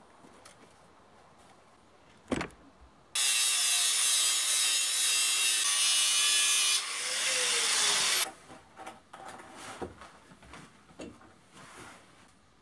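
Angle grinder cutting metal for about five seconds, running steadily, then its pitch dipping and recovering under load before it stops abruptly. A single knock comes before it, and scattered knocks and clatter of handling follow.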